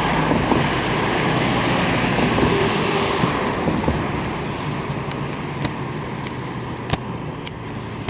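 Road traffic: a motor vehicle passing close by, its tyre and engine noise fading away about halfway through over a low, steady engine hum. A few faint sharp ticks come near the end.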